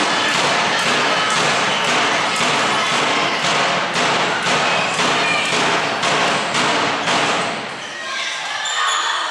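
Crowd in a sports hall cheering and chanting to a steady rhythmic beat of about two strokes a second. The chant dies down near the end, leaving scattered voices and a few ball thuds.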